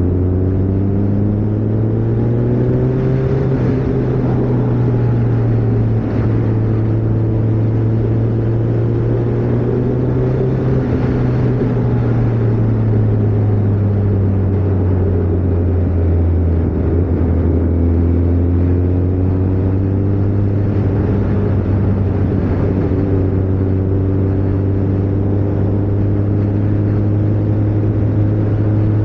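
Kawasaki ZZR1400's inline-four engine running as the bike is ridden. Its pitch rises over the first few seconds, drops around the middle as the throttle eases, and climbs again a little later.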